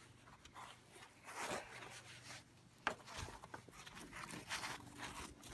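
Faint, intermittent rustling and scraping of braided line sliding through rubber-gloved hands as a knot is tied, with a small tap about three seconds in.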